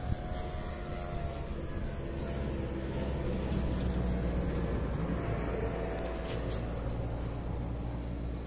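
Hangar 9 Showtime 50 RC plane's freshly overhauled OS Alpha 81 glow engine running steadily in flight, a distant drone whose pitch wavers slightly as the plane flies around.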